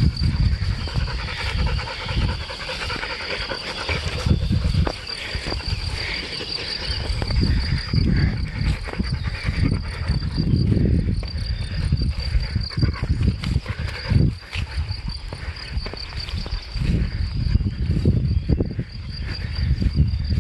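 Meadow insects chirping steadily in a high, fast-pulsing trill, with an uneven low rumble underneath that comes and goes.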